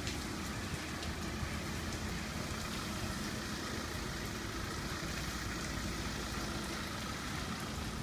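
Steady patter of water spraying and dripping inside a Belanger Freestyler rollover car wash, over a low steady rumble.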